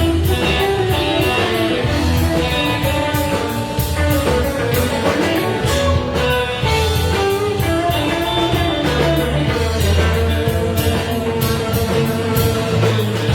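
Live band playing a blues-rock number, guitar over a drum kit, with no clear vocal.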